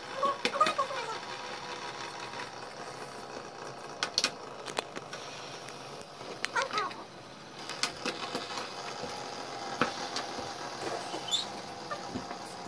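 Plastic light-up fidget spinners whirring as they spin flat on a wooden tabletop, a steady buzzing hum, with scattered clicks and knocks as they are flicked and touched against the table.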